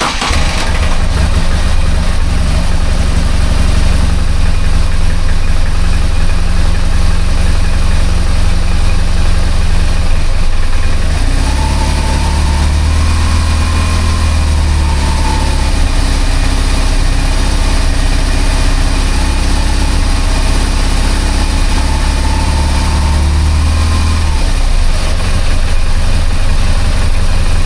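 BMW R1200GS air/oil-cooled boxer twin idling steadily just after starting, its throttle bodies not yet synchronized; the owner says this bike idles rough and shakes. The low rumble swells for a stretch in the middle, then settles back.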